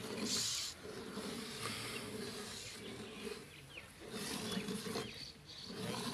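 Hand-milking of a buffalo: streams of milk squirt from the teats into a steel bucket already partly full of milk, a short hiss with each pull, about one or two a second. A low hum runs underneath.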